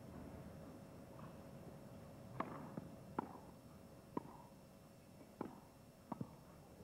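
Tennis rally: racquets striking the ball back and forth, a string of sharp hits roughly once a second.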